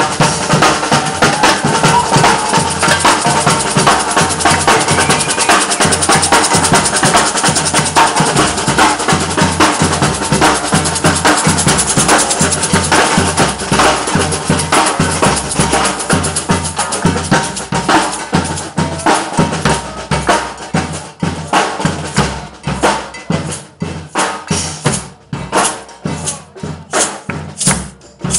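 Batucada samba percussion group playing a fast, loud drum groove of deep bass drums and snare drums. Over the last several seconds the dense drumming thins to separate, spaced strokes.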